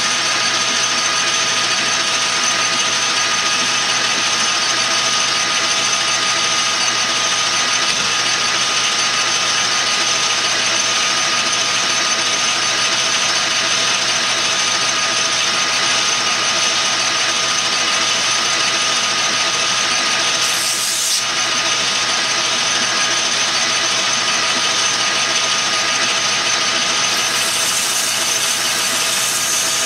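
Metal lathe running steadily, a constant whine over the motor hum, with one brief dip about two-thirds of the way in.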